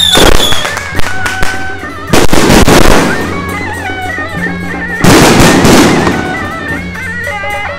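Fireworks and firecrackers going off, with loud bursts near the start, about two seconds in and about five seconds in, and crackling in between. Music with a wavering melody plays under them.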